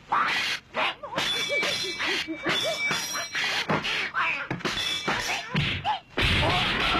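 Dubbed kung fu film fight sound effects: a rapid series of punch and kick whacks, with short yelping cries between them. About six seconds in, a louder sustained noise sets in.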